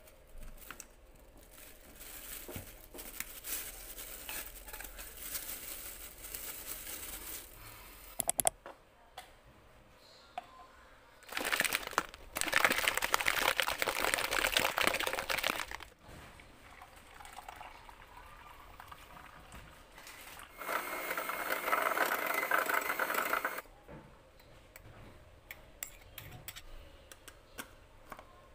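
A plastic cup of milk tea with tapioca pearls shaken hard in two bursts, about twelve seconds in and again about twenty-one seconds in, the liquid sloshing inside. Between the bursts there is lighter handling of plastic cups and lids.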